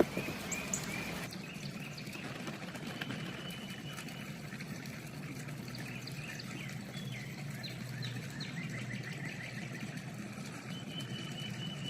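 Small birds chirping, with repeated short notes and a few high trills, over a steady low background hum. A brief click at the very start.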